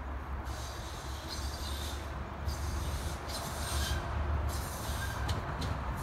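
A 71-619KT tram approaching along the track: a steady low rumble, with high-pitched buzzing or squealing bursts repeating about once a second.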